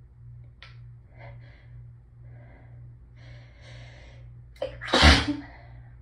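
A person's hayfever sneeze: a few breathy, hitching inhales build over about four seconds, then a short catch and one loud sneeze about five seconds in, with a deep low undertone.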